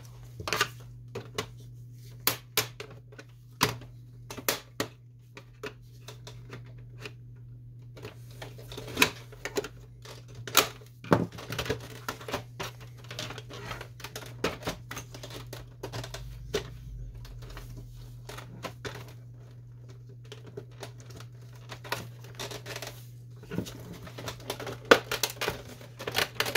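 Plastic housing parts of a Canon Pixma MP560 inkjet printer being handled and unclipped by hand: a string of irregular clicks, snaps and light scrapes, the sharpest about eleven seconds in and near the end. A steady low hum runs underneath.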